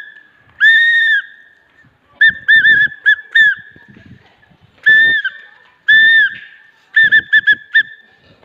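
A referee's whistle blown over and over, mixing long blasts with quick runs of short toots.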